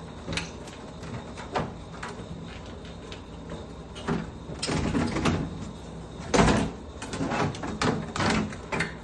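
Refrigerator being pushed back into place against the kitchen wall: a run of irregular knocks and short scrapes, with one sharp bang about six and a half seconds in.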